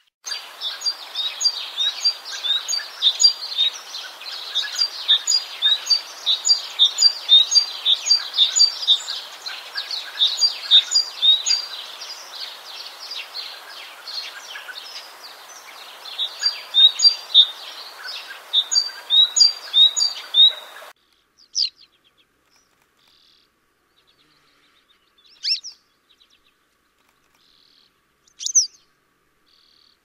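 A flock of small songbirds chirping and twittering densely, with many short high calls overlapping; it cuts off abruptly about two-thirds of the way through, after which only three single short calls come, a few seconds apart.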